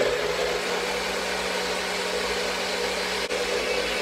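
Personal bullet-style blender running steadily, its motor whirring as it blends frozen mango with water into a smoothie-thick drink.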